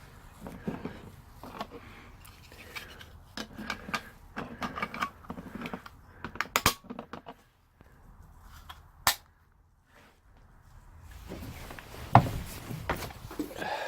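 Scattered sharp clicks and knocks of small hard objects being handled in a small enclosed space, busiest in the first seven seconds, with one sharp click about nine seconds in and a few more knocks near the end.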